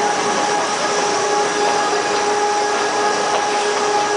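Electric rack-railway tram climbing, heard from on board: a steady whine from its motors over constant running noise, with a few faint clicks from the car.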